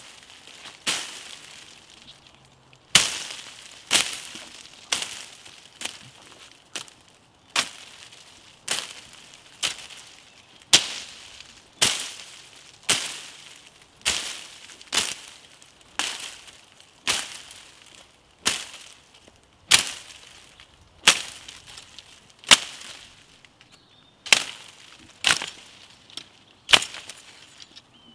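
Dry twigs and small branches snapping with sharp cracks, about one a second at a fairly steady pace, each crack falling away quickly.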